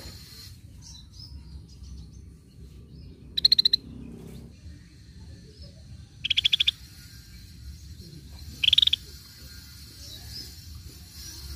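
Scaly-breasted bulbul calling: three short, rapid trilled notes, each about half a second long, a couple of seconds apart.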